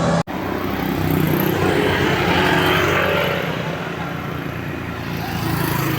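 A large tour bus driving past: low engine note with road noise that swells over the first three seconds and then eases off.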